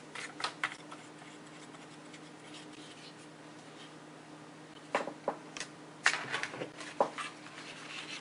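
Handling noise of a shotgun microphone on a DSLR body: plastic clicks and knocks as the shoe mount and cable are handled and the camera is turned. There are a few light clicks near the start, then a cluster of knocks and rustles from about five to seven seconds in, over a faint steady hum.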